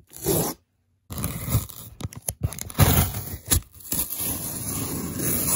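Packing tape being torn and peeled off a cardboard box: a rough, continuous tearing and scraping sound with sharp crackles, starting about a second in after a brief rustle.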